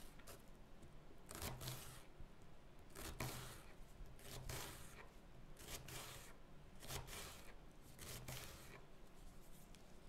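Kitchen knife slicing a raw onion on a wooden cutting board: a slow series of faint, crisp cuts, some in quick pairs, about a second or so apart, each with a soft knock of the blade reaching the wood.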